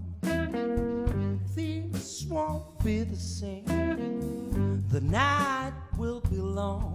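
Blues band playing an instrumental passage, a saxophone soloing in quick notes over guitar, bass and drums, with a rising bend about five seconds in.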